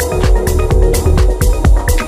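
Melodic techno music with a steady kick drum on every beat, about two a second, under sustained synth tones.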